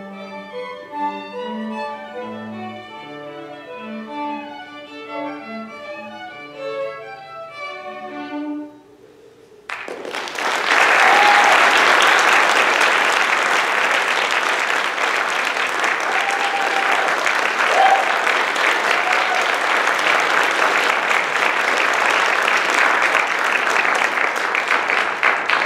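A string trio with violins and cello plays the closing bars of a divertimento movement, ending about eight and a half seconds in. After a brief pause the audience breaks into loud, steady applause with a few short cheers.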